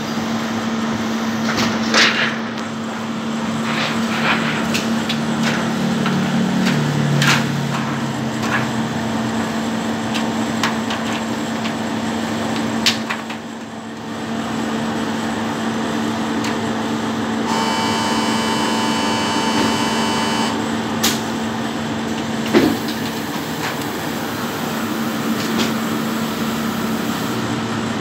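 Shinohara 52 offset printing press humming steadily while its printing plate is fitted, with scattered clicks and knocks as the metal plate is handled and clamped. About two-thirds of the way through, a higher whine of several steady tones sounds for about three seconds as the plate is fed around the cylinder.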